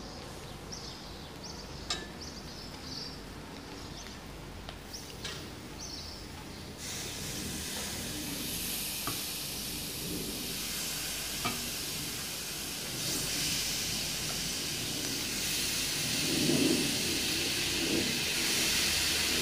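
Raw chicken pieces being put by hand into hot coconut oil and roasted spice masala in a metal wok, sizzling. The sizzle starts about seven seconds in and grows louder as more pieces go in, with a few light clicks and knocks from the handling.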